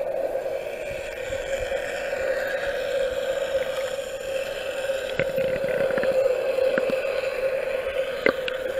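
A steady hum heard under water through a waterproof camera, with a few small clicks in the second half and a sharper click near the end.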